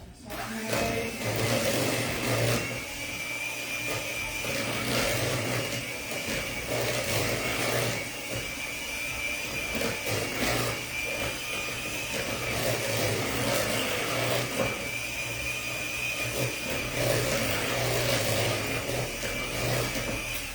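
Electric kitchen mixer running steadily while whipping mashed potatoes with cream: a small motor's steady whine that wavers slightly, over a low hum.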